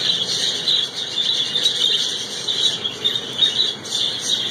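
A flock of budgerigars chattering and chirping together, a continuous high-pitched twittering.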